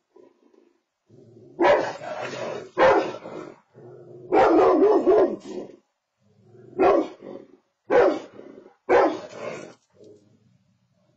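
Golden retriever barking at a bear: a series of about six loud barks, the third one drawn out and wavering, with fainter lower sounds between them.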